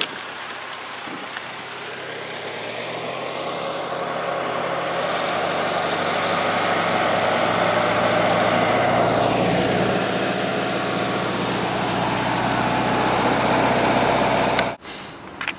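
Car audio subwoofers playing a bass note of about 35 Hz at competition level during an SPL burp that the meter reads as 160 dB. The sound builds over several seconds, holds, then cuts off suddenly near the end.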